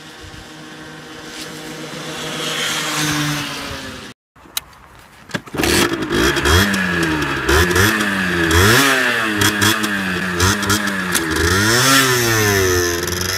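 50cc two-stroke moped engine revving. The pitch climbs for about four seconds and cuts off abruptly; after a short gap the engine is revved hard, its pitch swinging up and down many times.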